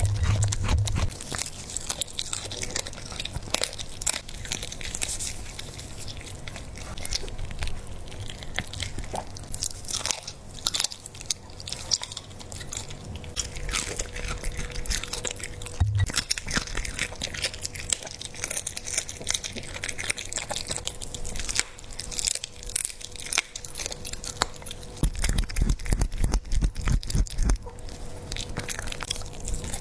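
A dog chewing a raw squab, with wet chewing and repeated sharp crunches as the small bones crack. There is a run of heavier crunches near the end.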